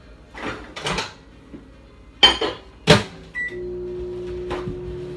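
Microwave oven being worked: a few knocks and clicks of its door and handling, a short beep a little after three seconds in, then the microwave starts running with a steady hum, softening a dish of butter.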